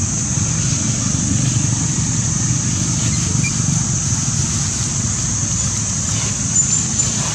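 Steady outdoor ambience: a constant low rumble under an even high-pitched hiss, with a couple of faint ticks near the end.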